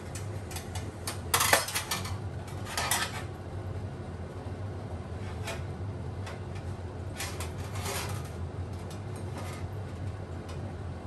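Stainless steel utensils clinking and scraping on a perforated stainless steel tray as a boiled whole chicken is shifted on it to drain, the loudest clatter about a second and a half in and more around three seconds and seven to eight seconds in. A steady low hum runs underneath.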